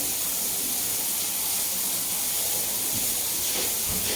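A steady hissing noise.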